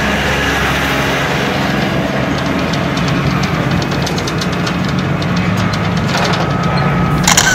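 P-51 Mustang's Packard Merlin V-12 aero engine running steadily on the ground, a deep drone with a faint crackle through the second half. A loud sharp crack comes near the end.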